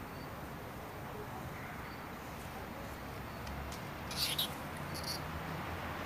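A brief cluster of sharp, high-pitched squeaks or hisses about four seconds in and another a second later, from a wild rat cornered by cats in the grass. Faint bird chirps over steady outdoor background noise.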